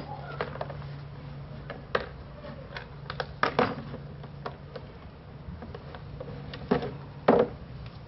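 Socket wrench and torque wrench working the front-end bolts of a Triumph Bonneville: scattered ratchet clicks and metal clacks, with a few louder sharp clicks about three and a half, then six and three-quarter and seven and a quarter seconds in, over a steady low hum.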